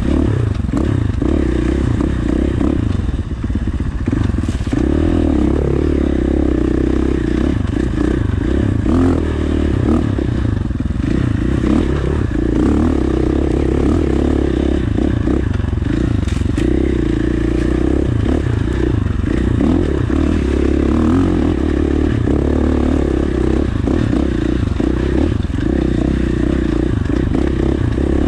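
KTM 450 four-stroke single-cylinder dirt bike engine running under load on a trail ride, heard on board, with the throttle opening and easing off.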